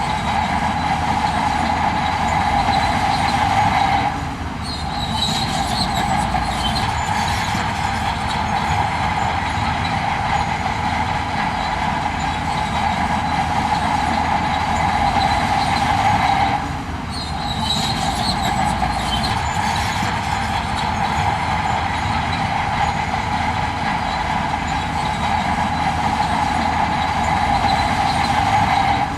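Heavy construction machinery running steadily, an engine rumble with a high squealing, grinding tone, dipping briefly twice.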